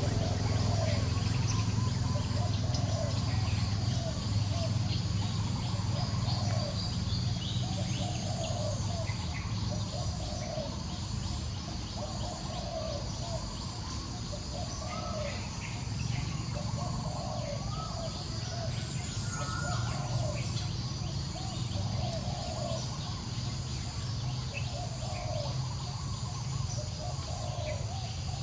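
A bird calling a short note over and over, about once every second or so, over a steady low hum and a high hiss.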